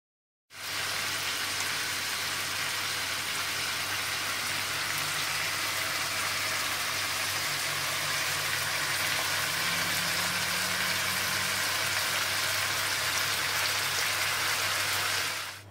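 Chicken pieces sizzling in hot oil in a karahi, a steady frying hiss that starts suddenly about half a second in and cuts off just before the end, with a faint low hum underneath.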